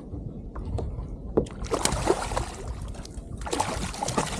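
Water splashing beside a kayak as a hooked kahawai thrashes at the surface, in two spells of irregular splashes, one starting about a second and a half in and a stronger one near the end.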